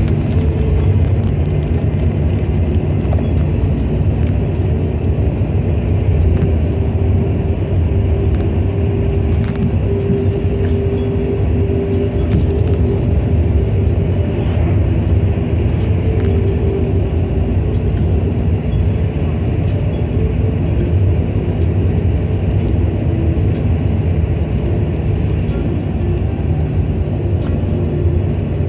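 Road and engine noise from a moving road vehicle, heard from inside: a steady low rumble with a hum that wavers slightly in pitch.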